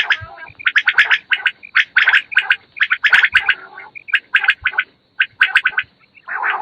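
Quail calling: quick clusters of rattling, clicking notes repeated in close succession, about two groups a second.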